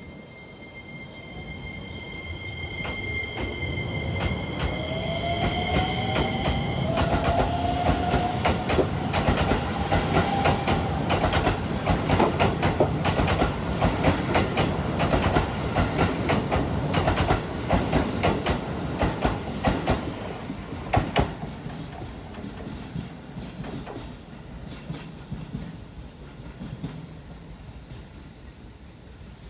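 Keisei 3000-series electric train pulling out of a station. Its traction motors give a whine that rises in pitch as it gathers speed, and its wheels click rapidly over the rail joints as the cars pass. The sound then fades away. A high steady tone cuts off about seven seconds in.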